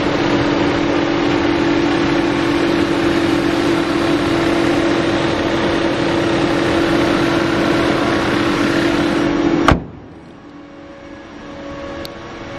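Volkswagen Tiguan 1.4 TSI petrol engine running steadily, heard close up in the engine bay as a loud, even rush with a steady low hum. About ten seconds in it cuts off with a click to a much quieter steady hum.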